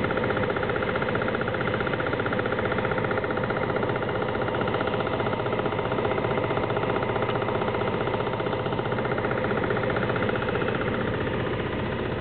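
Apheresis machine's centrifuge running: a steady mechanical hum with a fast, even pulsing as it spins, separating the donor's blood into its components.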